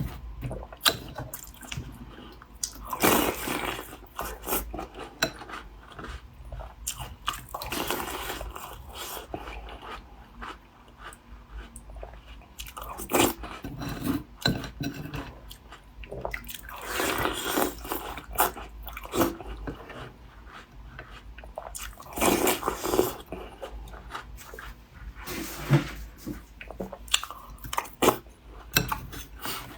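Chewing and crunching of crumbly taosu (Chinese walnut shortbread cookies), with a louder crunchy bite every few seconds.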